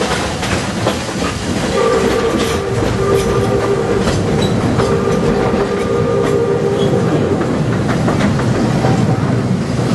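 Walt Disney World Railroad steam train running along the track with wheel clatter, as its locomotive's whistle sounds two long chord blasts of about two and a half seconds each, beginning about two seconds in.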